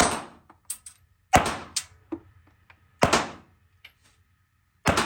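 Gunshots at an indoor firing range: four loud shots about a second and a half apart, each with a short echoing tail, with fainter sharp cracks between them.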